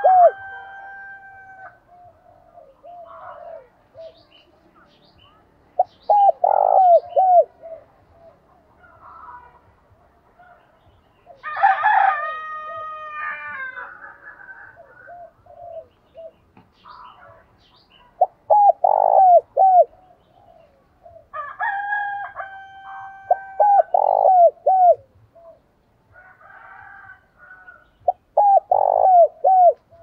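Spotted dove cooing: about five short phrases, each three or four quick low coos, spaced several seconds apart. Twice, about a third and about two-thirds of the way in, another bird gives a longer call of steady held notes.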